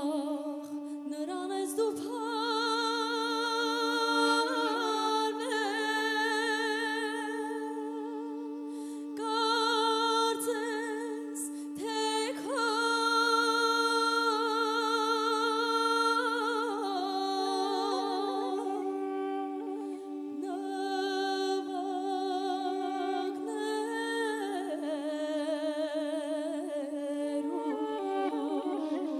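A woman singing an Armenian folk song in a slow, ornamented line with heavy vibrato over a steady held drone. The melody pauses briefly twice while the drone carries on underneath.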